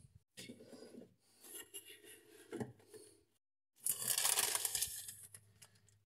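Plastic food packaging crinkling and rustling as it is handled in the fridge. It comes in a few bursts, the loudest and longest starting about four seconds in.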